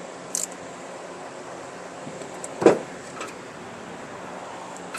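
Steady background hiss with a couple of light clicks and one louder knock about two and a half seconds in: tools or parts being handled while working on the horn wiring.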